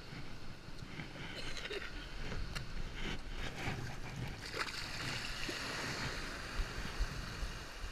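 Small waves breaking and washing over a shallow sandy shore, with splashing in the shallows; the rushing grows louder past the middle.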